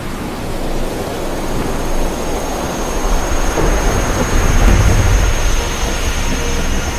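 Thunder-like rumble with a steady hissing wash, a sound effect under an animated title, swelling about four to five seconds in; a thin high whine enters about two seconds in and holds.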